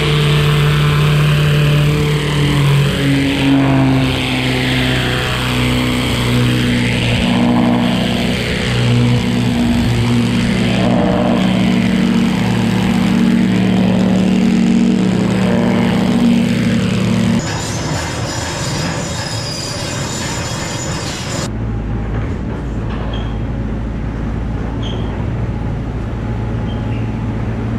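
Hot-water pressure washer running, its jet hissing against an excavator's cab and bodywork, the hiss swelling and fading as the wand sweeps. The sound changes abruptly after about 17 seconds, and near the end only a quieter steady low hum remains.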